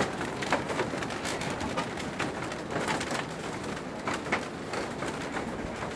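Doves cooing, repeatedly, over a steady background noise.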